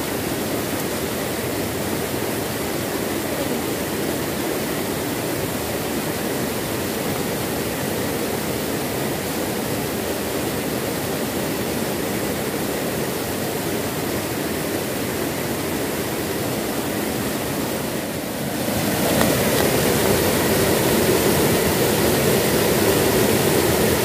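Small waterfall pouring over a rocky ledge into a shallow river pool: a steady rush of falling water, which becomes suddenly louder near the end.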